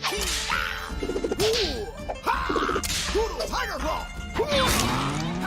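Cartoon martial-arts sound effects: a quick flurry of whooshes and whacks mixed with short, pitched grunting yells.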